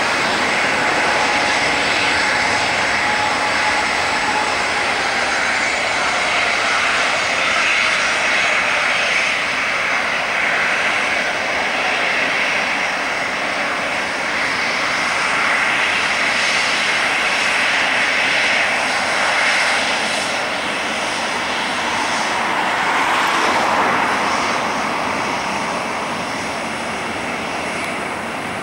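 Twin CFM56-7B turbofan engines of a Boeing 737-800 at low taxi power, giving a steady rushing hiss with a faint high whine. The sound swells a little as the jet draws level, about three-quarters of the way in, and eases near the end.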